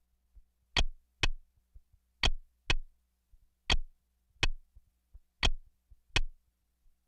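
Clock ticking: eight sharp, dry ticks at an uneven pace, some close together in pairs, with fainter clicks between.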